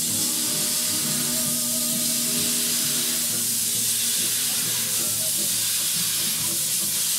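Narrow-gauge steam locomotive 'Kiama' hissing steadily as steam blows out from its open cylinder drain cocks while it moves slowly along the track.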